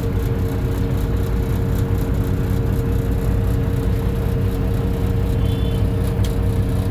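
Caterpillar 349 excavator's diesel engine running steadily under load, with scattered light clicks and rattles and a brief high chirp about five and a half seconds in.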